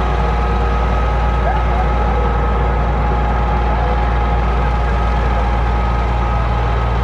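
Steady low mechanical rumble, like a vehicle engine running, with a few steady whining tones above it.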